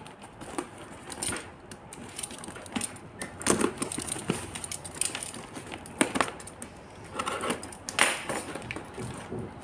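A cardboard parcel wrapped in packing tape is handled and cut open: rustling and crinkling of tape and plastic, with scattered taps. About eight seconds in comes a louder, sharp scrape as a knife blade cuts into the taped corner.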